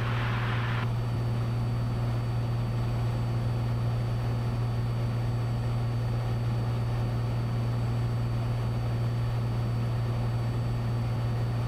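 Cessna 182 Skylane's six-cylinder piston engine and propeller droning steadily in level cruise, heard from inside the cabin as a constant low hum with a wash of noise over it.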